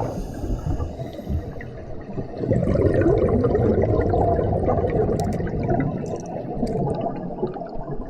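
Sea water gurgling and bubbling close to the microphone.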